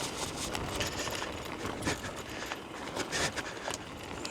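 Nami Klima electric scooter riding over a rough dirt trail: a continuous rumbling rattle of tyres and frame, with many irregular clicks and knocks.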